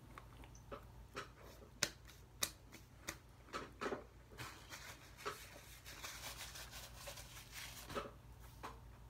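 Quiet, scattered clicks and soft rustles of a person chewing a mouthful of burger and rubbing crumbs off his hands, over a faint steady low hum.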